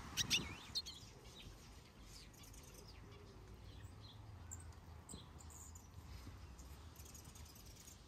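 Mixed aviary finches and softbills chirping: a few louder, sharp chirps in the first second, then scattered faint high chirps over a low, steady background noise.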